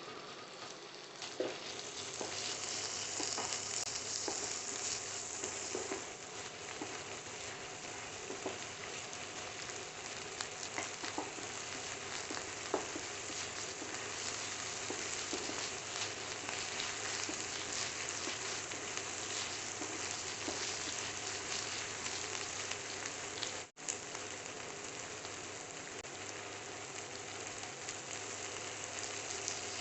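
Hakka noodle stir-fry sizzling steadily in hot oil in a pan, with occasional light ticks of a spatula stirring it. The sizzle cuts out for a moment about three-quarters through.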